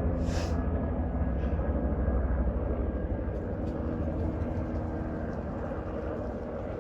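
Bell 206L-4 LongRanger helicopter's rotor and turbine engine as a steady low rumble, slowly fading as it moves away after the flyby. A brief hiss comes just after the start.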